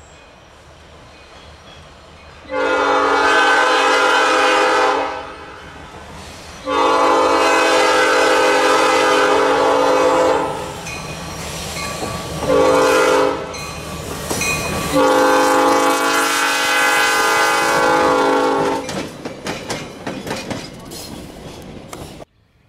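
Baldwin diesel switcher locomotive's horn sounding the grade-crossing signal: two long blasts, a short one, then a long one, over the train's low rumble.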